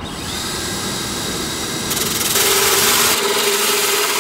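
Cordless drill driving a hole saw through a fiberglass enclosure lid: a steady motor whine with the grinding of the saw teeth, getting louder about two seconds in as the saw cuts in.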